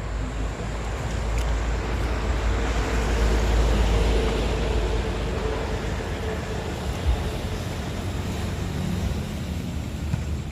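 A road vehicle driving past: a low rumble with a steady engine tone that swells to its loudest about four seconds in, then fades.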